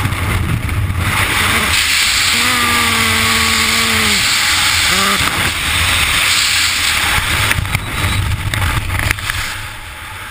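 Wind rushing loudly over the camera microphone in skydiving freefall. A person gives a long held shout about two seconds in and a short one near five seconds. The wind noise eases near the end.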